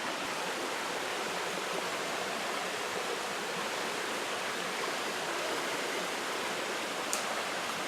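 Two streams flowing together: a steady rush of running water.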